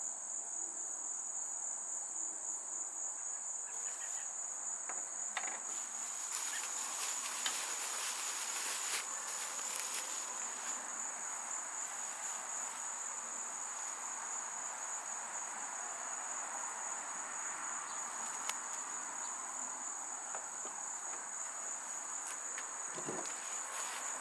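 Steady high-pitched insect trilling, like a cricket chorus, running unbroken. Light clicks and rustles of handling come and go between about four and ten seconds in, with another click near the end.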